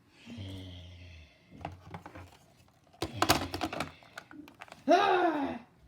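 Clicking and clattering of small hard objects, with a cluster of quick knocks about three seconds in, then a short vocal cry that rises and falls in pitch near the end.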